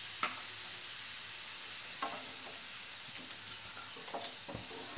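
Diced carrots sizzling steadily in hot oil in a non-stick pan, just after water has been added, with a few faint light clicks.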